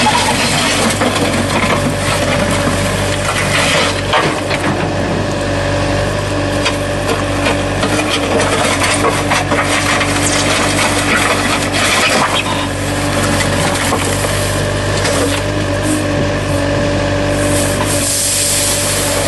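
Road-repair machinery at work: an engine running steadily, with rough scraping and rasping over it throughout.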